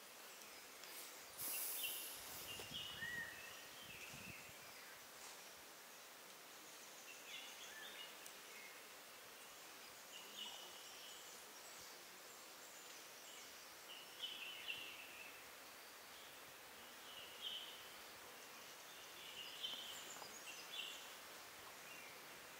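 Quiet forest background with short, high bird chirps scattered every few seconds. There is a brief rustling noise about one and a half seconds in.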